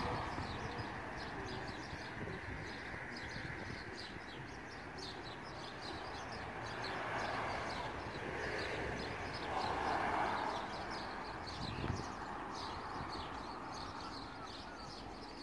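Many small birds chirping and twittering in quick, overlapping calls, over a steady low background rumble.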